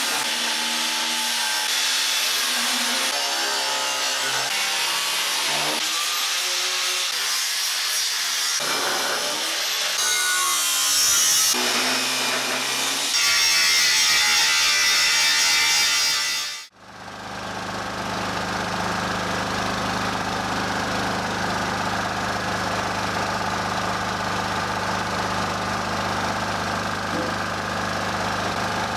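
Angle grinder cutting steel plate off chassis outriggers, its whine shifting in pitch as it cuts. About 17 seconds in it cuts off suddenly and gives way to a steady hum with hiss from the abrasive blasting cabinet set-up.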